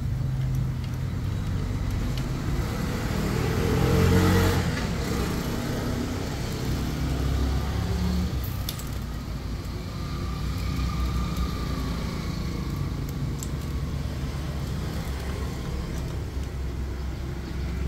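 Motor vehicle traffic running and passing, a steady rumble that swells louder about four seconds in as one vehicle goes by.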